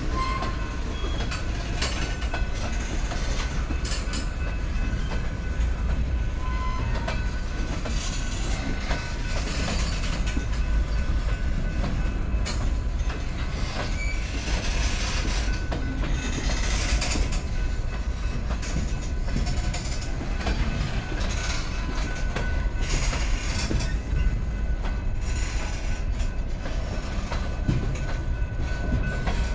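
Long freight train of tank cars and covered hoppers rolling slowly past, its steel wheels rumbling and clicking over the rails, with a thin steady wheel squeal.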